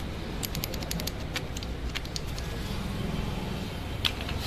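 A few light, scattered metallic clicks and taps from a motorcycle disc brake caliper and its parts being handled while it is cleaned, over a steady low background rumble. The strongest click comes near the end.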